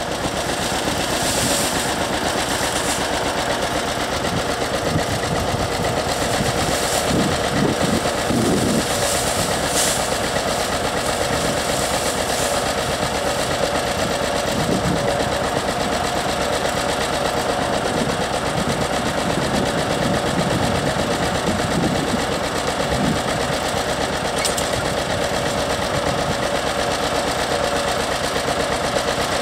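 John Deere two-cylinder tractor engine idling steadily with the tractor standing still.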